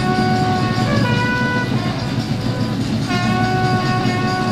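Trumpet sounding a ceremonial salute call in long held notes. The pitch steps up about a second in, drops back a moment later, and a new long note begins about three seconds in, over a steady low background noise.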